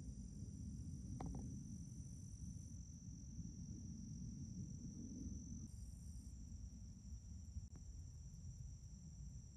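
Steady high-pitched chorus of crickets and other insects, over a low rumble, with a faint short chirp about a second in.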